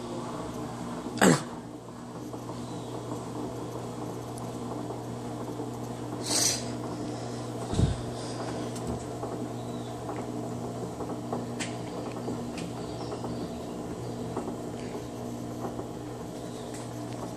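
Electrolux LT15F top-loading washing machine running with a steady low hum. It is broken by a few short sounds: a loud squeak falling in pitch about a second in, a brief hiss a few seconds later and a low knock shortly after.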